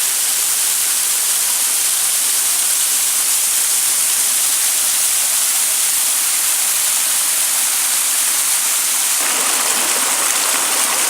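Waterfall: a steady rush of falling water, hissy and even, which turns fuller and deeper about nine seconds in.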